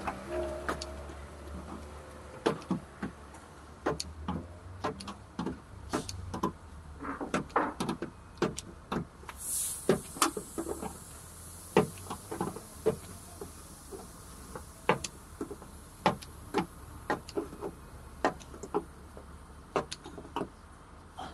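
Dent-puller stud welder gun spot-welding a zigzag pulling wire onto a dented steel car door: a long string of sharp snapping clicks, one per weld, coming irregularly and often in quick runs, over a low hum during the first several seconds.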